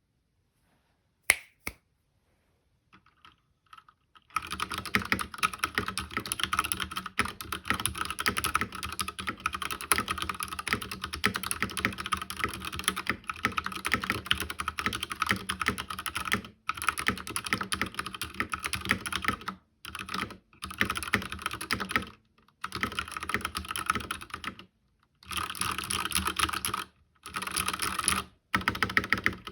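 Typing on an Akko 3087 mechanical keyboard with soldered pink Gateron linear switches and PBT double-shot keycaps, in its stock form. After a single key click and a pause of a few seconds, continuous fast typing begins and runs with only brief pauses. The light linear switches in the plastic case give a somewhat hollow sound.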